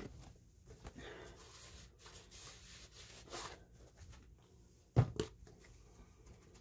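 Faint rustling and rubbing of hands handling things, with a few small clicks and two sharp knocks close together about five seconds in.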